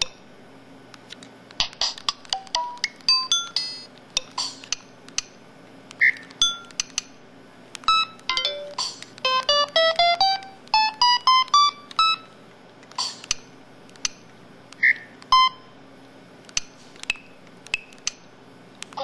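Samsung SPH-E2000 mobile phone's built-in sound effects played one after another: short electronic beeps, chimes and jingles with brief gaps between them, including a quick run of notes climbing in pitch about halfway through.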